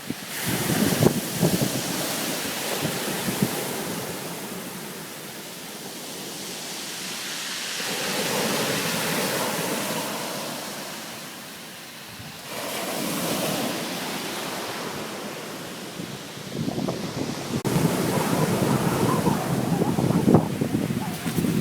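Surf washing onto a beach, swelling and fading as waves come in, with gusts of wind buffeting the microphone, heaviest in the first few seconds and again in the last five.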